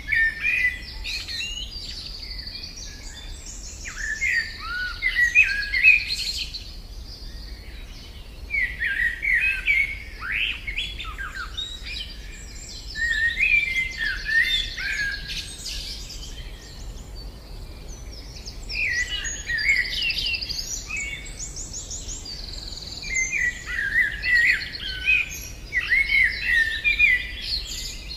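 Common chaffinch singing: song phrases of a few seconds, repeated about every five seconds with pauses between.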